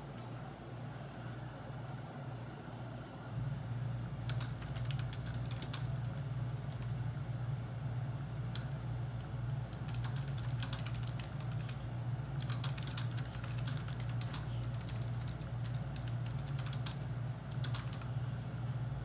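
Typing on a computer keyboard in bursts of quick key clicks with short pauses, starting about four seconds in, over a steady low hum.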